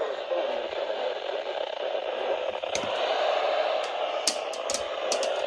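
Steady static hiss from a NOAA Weather Radio receiver, the broadcast voice faded out under weak reception, with a few sharp crackling clicks in the second half.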